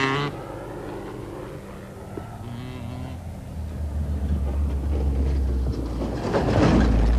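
Off-road rally vehicles driving over a rough, rocky dirt track. An engine's low drone comes in and grows louder about halfway through. Near the end there is a loud rush of tyre and stone noise as a vehicle comes close.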